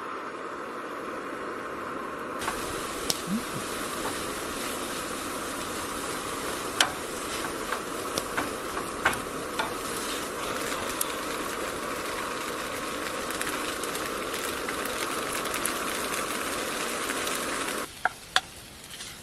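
Noodles sizzling in a pan: a steady frying hiss with occasional sharp clicks of a utensil against the pan. The sizzle cuts off suddenly near the end.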